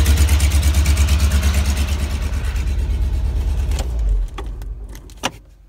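Car engine idling with an even exhaust pulse, then switched off about four seconds in and running down to a stop. A sharp click comes about a second later.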